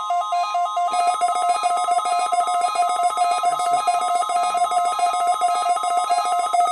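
NOAA Weather Radio warning alarm during a weekly test: a steady 1050 Hz tone, overlaid by a rapid electronic two-pitch warble that thickens about a second in. The steady tone cuts off near the end.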